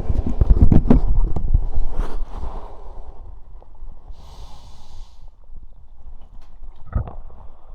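Close-miked stomach and throat sounds from drinking soda: a loud low rumble full of rapid clicks for about two seconds, then a short airy hiss a little past halfway, and a single thump near the end.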